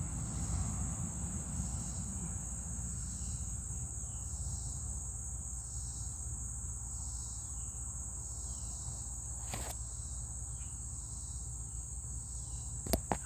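Steady high-pitched trilling of an insect chorus, with a softer pulse repeating about every three-quarters of a second. Under it runs a low rumble, and a few sharp clicks come near the end.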